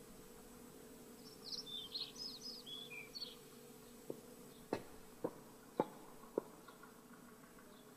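A small bird twittering a quick run of high chirps for about two seconds, followed by five sharp footsteps on a hard floor about half a second apart, over a faint steady hum.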